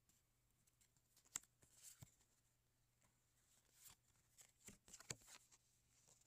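Faint handling of a stack of Magic: The Gathering trading cards: a few soft clicks and slides of card against card as they are shifted through the hand, most of them about a second and a half in and again from about four to five and a half seconds in, over a faint low hum.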